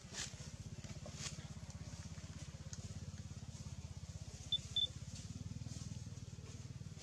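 An engine running steadily with a low, rapid pulse; two short high chirps about four and a half seconds in.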